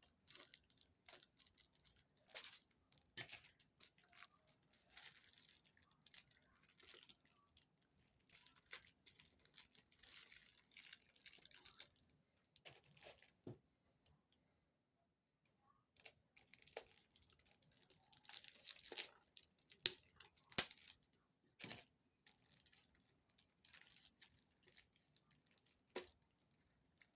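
Packaging being handled and worked open: faint, scattered crinkling and tearing in short bursts, with a few louder crackles about two-thirds of the way through.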